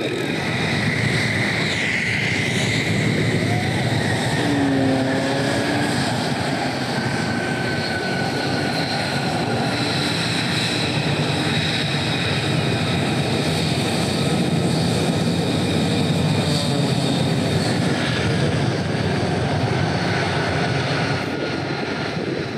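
F-35A's Pratt & Whitney F135 turbofan running as the jet taxis: a steady loud whine over a dense low rumble, with a high tone that falls in pitch about two seconds in.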